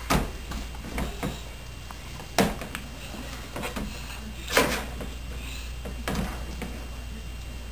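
Hard plastic Play-Doh press knocking and clacking against a plastic play-kitchen counter as it is pushed down, in a handful of separate knocks, the loudest about two and a half and four and a half seconds in.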